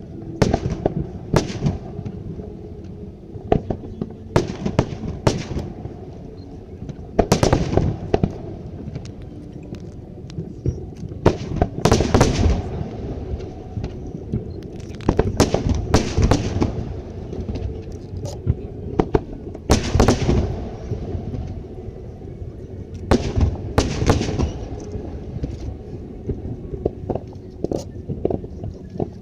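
Aerial fireworks display: shells bursting in irregular volleys of sharp bangs, several in quick succession, every few seconds over a continuous low rumble.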